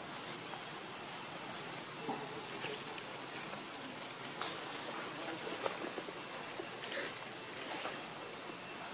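Steady, high-pitched drone of insects, with a few faint scattered rustles and snaps of leaves and twigs as a baby macaque climbs through the undergrowth.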